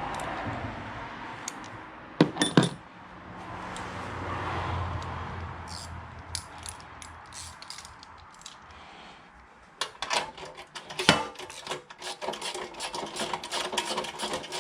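Metal tools clinking against bolts, nuts and a heat shield while 10mm nuts are tightened, with a couple of sharp clinks about two seconds in and a fast run of clicking in the last few seconds.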